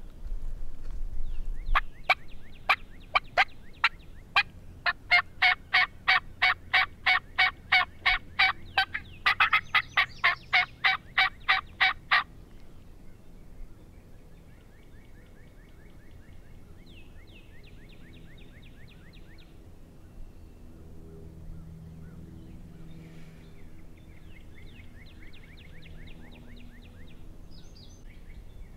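Wild turkey hen calling made on a hunter's mouth call. A loose string of sharp, uneven cutts is followed by a long, even run of loud yelps at about three a second, ending about twelve seconds in.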